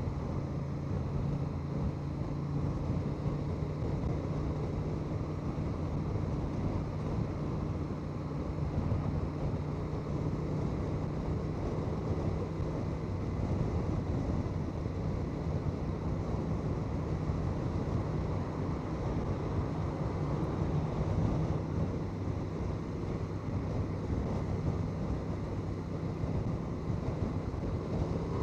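Honda Transalp 750's parallel-twin engine running at a steady cruise on the road, with wind rushing over the microphone.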